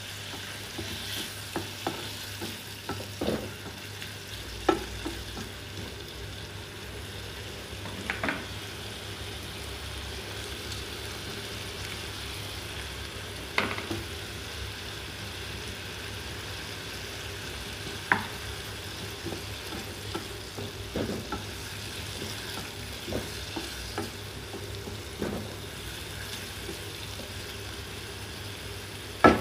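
Shrimp and carrot strips sizzling steadily in a nonstick frying pan, with a spatula stirring and now and then clicking against the pan.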